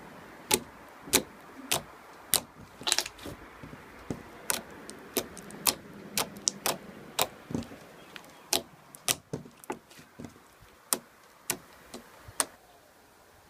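Slime being pressed and squished by hand, giving sharp, irregular clicks and pops, about two a second.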